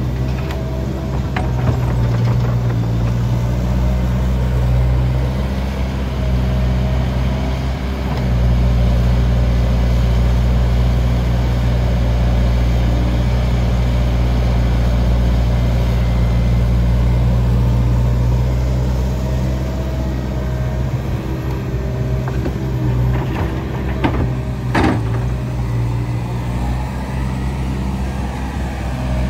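Diesel engines of a Liebherr R916 crawler excavator and a Komatsu HM300 articulated dump truck running steadily, as the excavator's engine and hydraulics work harder for about ten seconds in the middle while it digs and swings. A single sharp knock comes near the end.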